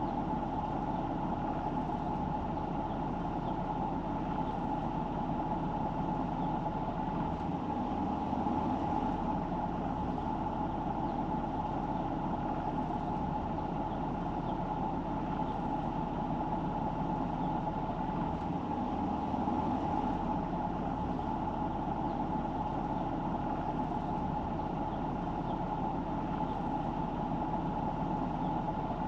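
A car being driven: steady engine and road noise with a constant hum.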